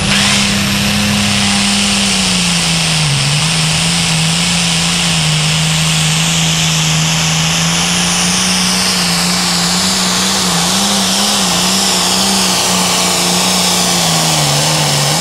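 Limited Pro Stock diesel pulling tractor at full throttle under load, dragging the weight sled. A loud, steady engine note that dips slightly about three seconds in, then wavers a little as the run goes on.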